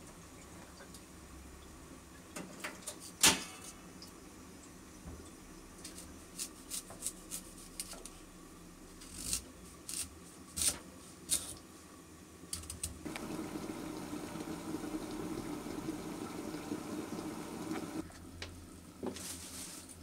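Small knife clicks and taps on a wooden cutting board while a potato is peeled and cut, one sharper knock about three seconds in. About thirteen seconds in, a steady water-like rushing sound starts and runs for about five seconds before dying away.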